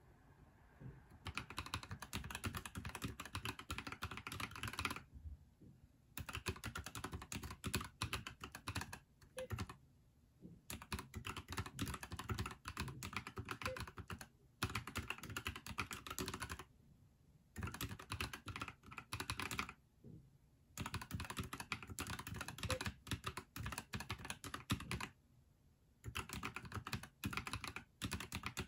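Fast typing on a NuPhy Halo75 mechanical keyboard: rapid runs of keystrokes, broken by short pauses of about a second between phrases, starting about a second in.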